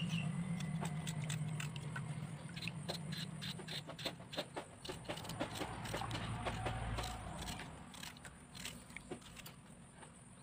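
Kitchen knife slicing through raw peeled potato held in the hand: many small crisp clicks and scrapes as each slice is cut. A low steady hum sits under the first few seconds, and a low rumble comes in about six seconds in.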